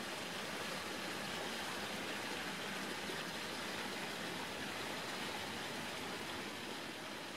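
Steady, even hiss, like rushing water or static, with no rhythm or distinct events.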